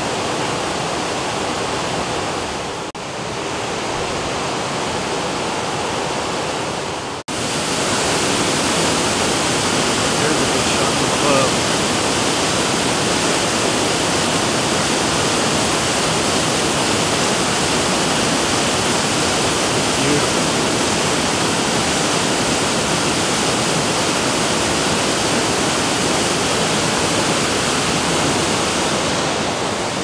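Steady rush of a waterfall. It cuts out for an instant about three seconds in and again about seven seconds in, and is a little louder after the second break.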